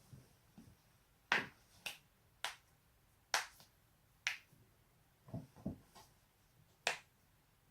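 Human joints cracking: about six sharp, separate pops, a second or so apart, with two duller, lower knocks a little past the middle.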